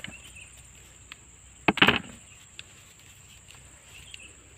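Sweet potato tubers knocking into a plastic bucket: a sharp click, then a short knock and clatter, about two seconds in. A steady high insect buzz runs underneath.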